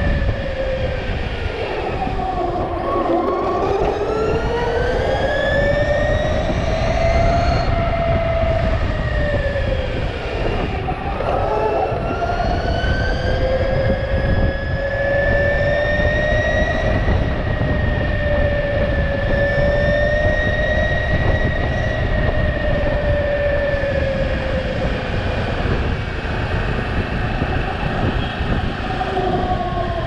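Ather 450X electric scooter's motor whining as it rides at around 50 km/h, the pitch dipping and climbing back twice and falling near the end as the scooter slows. A steady low rumble runs underneath.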